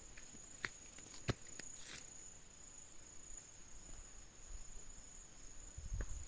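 Steady, faint, high-pitched insect drone, such as crickets. A few sharp clicks come in the first two seconds, and there is a low rumble near the end.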